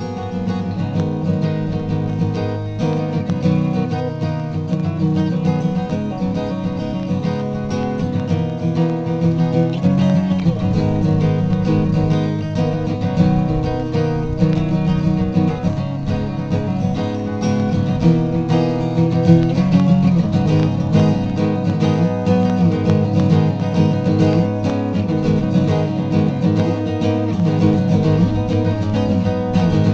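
Acoustic guitar being played continuously, a steady run of picked and strummed chords.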